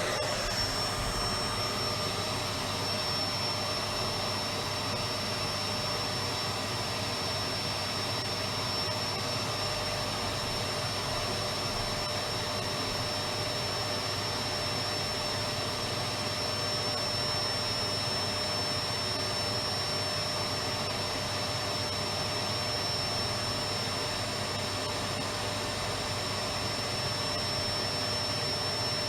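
Electric vacuum cleaner running steadily: an even rush of air with a constant high whine from the motor.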